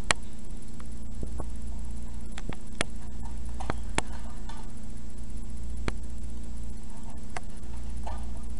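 Scattered light clicks and taps as cups and drinking straws are handled and pushed together on a homemade cup anemometer, the sharpest right at the start, over a steady low hum.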